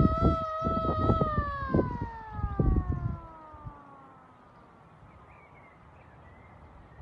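Hand-cranked air raid siren holding a slightly wavering wail, then winding down: about a second in its pitch starts falling steadily as it slows, and it fades out about four seconds in. Irregular low thumps and rumbles sit beneath it for the first three seconds.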